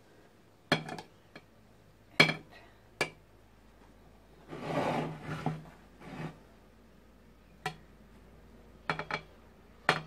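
A knife blade tapping and scraping against a white ceramic serving plate as whipped cream is smoothed along the cake's edges: a scatter of sharp clicks, with a longer rough scrape around the middle.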